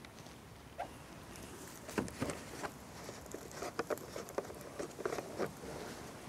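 Irregular patter of drips, small splashes and light knocks while insects are rinsed in a wire-mesh sieve over a plastic funnel and jug, busiest in the middle seconds.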